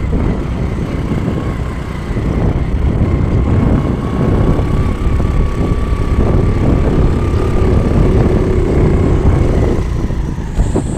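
Motorcycle engine running while the bike is ridden over a rough road, under a heavy, uneven rumble, with a faint steady whine held through most of it.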